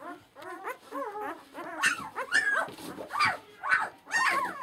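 Newborn Shiloh Shepherd puppies, four days old, crying: a string of short, high, wavering squeals, about two or three a second, getting louder about two seconds in. It is the noise of a litter calling for its mother.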